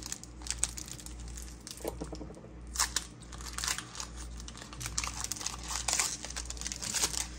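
Foil wrapper of a Pokémon trading card booster pack crinkling and tearing as it is opened by hand, in scattered crackles that get denser after the middle.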